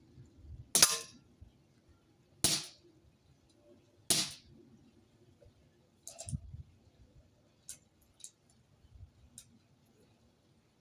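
Three sharp shots from a Huntsman FAL CO2 BB airgun, about a second and a half apart. A softer knock and a few faint ticks follow.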